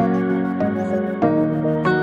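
Instrumental background music: held pitched notes and chords that change about every half second.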